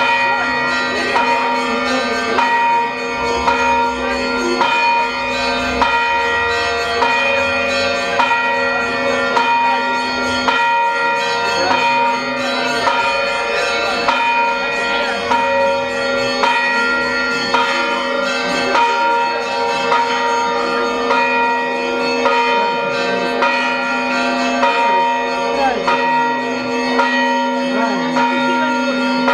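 Orthodox church bells rung in a festive peal: a large bell's steady hum underneath, with smaller bells struck over and over in a repeating pattern, roughly once a second, each stroke ringing on.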